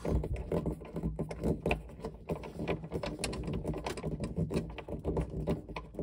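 Hand screwdriver driving the screw that holds a refrigerator's water filter head to the plastic ceiling of the compartment, with many small irregular clicks and scrapes as the screw is turned.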